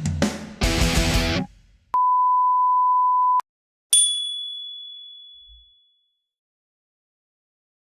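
Electric-guitar rock music cuts off about a second and a half in. After a short gap comes a steady single-pitch beep lasting about a second and a half, then a single bell-like ding that fades away over about two seconds.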